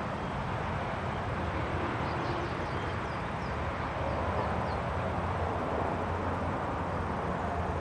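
Steady wind blowing with a low rumble. A bird gives a quick series of faint high chirps about two to four and a half seconds in.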